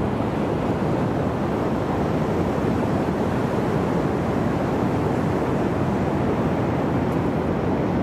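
Steady rush of ocean surf, with wind on the microphone.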